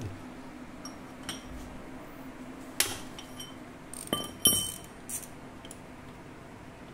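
A metal T-handle socket wrench clinking against the bolts and metal around a scooter's exposed stator: about seven sharp metallic clinks with a brief high ring, the loudest pair about four seconds in.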